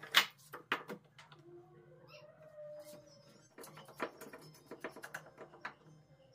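Steel bar clamps handled and set on glued hardwood boards: sharp metallic clicks and knocks, a few near the start and a quick run of them from about three and a half seconds in. A faint tonal squeak sounds around the middle.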